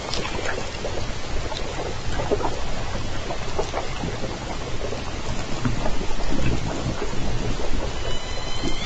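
Underwater hydrophone audio of southern resident killer whales: a low rumble of water noise with many scattered clicks, and a short high call with several stacked tones about eight seconds in.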